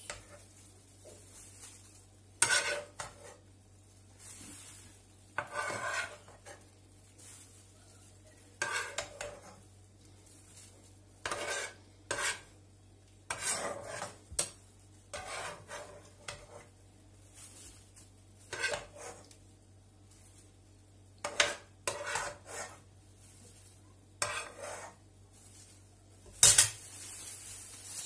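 Metal spoon scraping and clinking against a non-stick pot while scooping out cooked tomato-and-pepper sauce, in short separate strokes every second or two. A steady low hum runs underneath.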